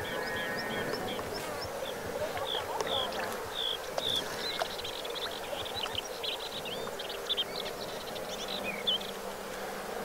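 Outdoor summer ambience: a steady buzz of insects, with small birds calling in short high notes a few times a second and a quick chattering run of notes in the middle.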